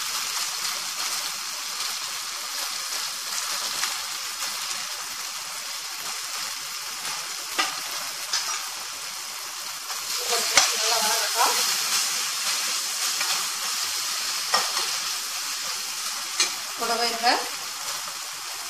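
Tomato-onion masala sizzling steadily as it fries in oil in a nonstick kadai, stirred with a steel slotted spoon. The spoon knocks and scrapes against the pan several times, with short scraping squeaks in the middle and near the end.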